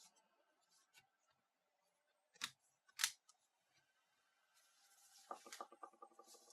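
Two sharp clicks about half a second apart, then a quick run of small clicks and rattling: hands working on the laptop's plastic and metal parts.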